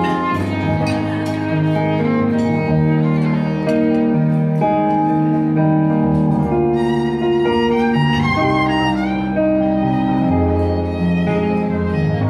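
Violin played live, a melody of long bowed notes, over a recorded accompaniment with held bass notes underneath.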